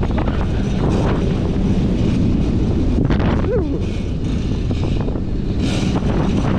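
Wind rushing over the camera microphone above a steady low rumble of a moving roller coaster train, with a brief voice-like sound about halfway through.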